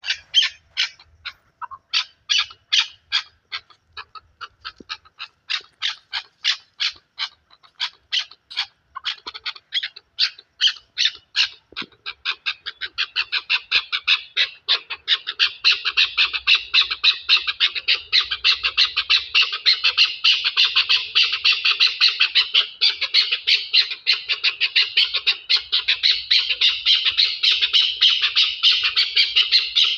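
Chukar partridges calling: a fast run of repeated sharp notes, a few each second. About twelve seconds in it thickens into a dense, continuous chatter of overlapping calls.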